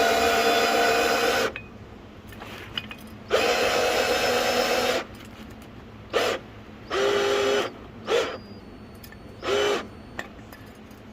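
Electric power-tool motor whining in repeated bursts as it drives a car jack up: two runs of about a second and a half, then four shorter blips, the later ones lower in pitch.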